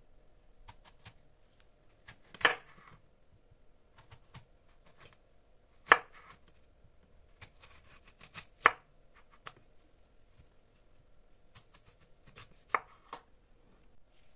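Chef's knife slicing a whole apple into rounds on a wooden cutting board: four sharp knocks as the blade comes through the fruit onto the board, each with a short crisp crunch, and a few lighter taps between them.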